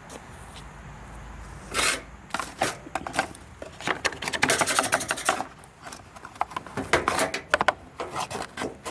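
Irregular scraping, rubbing and clicking of hands and tools on the parts of a disassembled RV furnace, with a quick flurry of scraping strokes about four to five seconds in.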